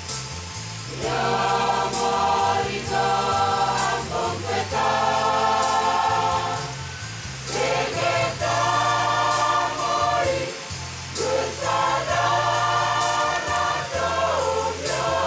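Church choir singing a hymn in several voices, in sustained phrases of a few seconds with brief breaths between them, over a low bass.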